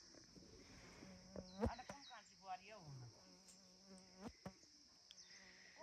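Faint, steady insect buzzing over near-silent garden quiet, with a few soft clicks.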